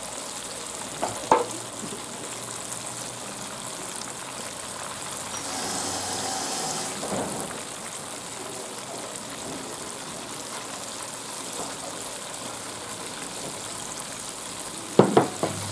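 Hot oil sizzling and bubbling steadily as pieces of pike conger coated in potato starch and flour deep-fry in a pot. There is a sharp knock about a second in and a few more near the end.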